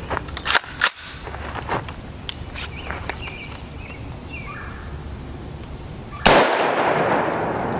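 .223 Remington rifle shot from an AR-15-pattern rifle with a 20-inch barrel, about six seconds in: one sharp crack followed by a long echo that fades slowly. A few light clicks come before it.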